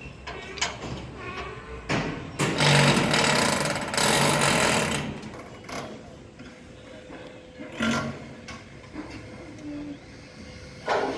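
Construction-site work noise: a power tool runs in two loud spells of about a second each, a few seconds in, among scattered knocks, over a faint steady hum.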